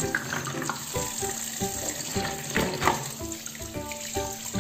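Tap water running into a plastic basin of green mussels, splashing as hands swish and rub the shells in the water, loudest a little before three seconds in. Light background music with short notes plays underneath.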